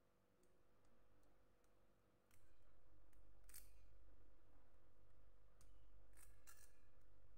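Soft processed cheese (Kraft Quick Melt) being grated on a flat metal hand grater: a few faint ticks, then short scraping strokes now and then. A low rumble comes in about two seconds in.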